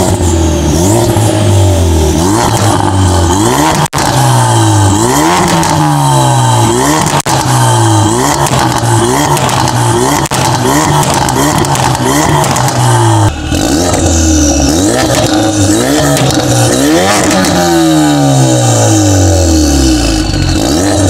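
Ford Focus RS MK3's turbocharged 2.3-litre four-cylinder revved again and again through an Armytrix valved exhaust, each rev climbing sharply and falling back. It is first heard with the exhaust valves closed, then with them open.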